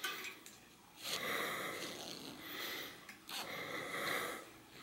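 A person breathing softly through the nose close to the microphone: two long breaths with a short pause between them.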